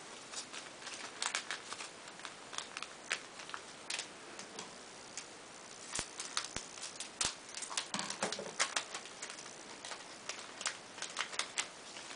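Crinkling of a foil Yu-Gi-Oh booster pack wrapper and cards being handled: irregular, sharp little crackles and clicks.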